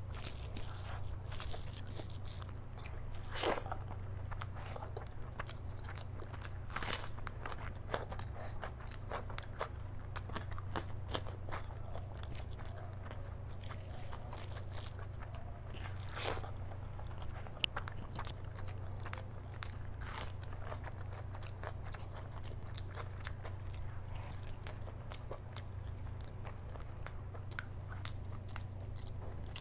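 Close-miked eating of rice and mutton curry by hand: wet chewing and mouth clicks, with a few louder mouth noises spread through. A steady low hum runs underneath.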